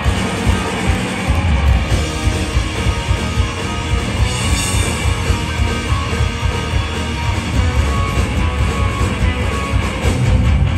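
Punk rock band playing live at full volume: distorted electric guitars, bass and drums.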